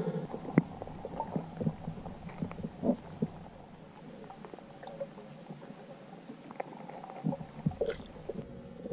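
Underwater audio: a low, dull rumble of the water with irregular sharp clicks and knocks, about one to three a second, as a jerkbait is twitched past bass.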